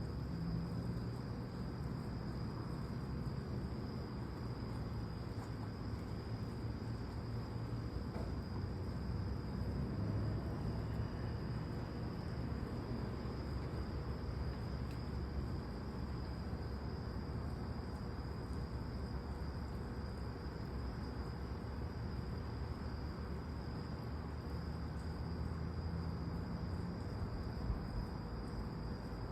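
Steady chorus of night crickets, a continuous high-pitched trill, over a low steady rumble.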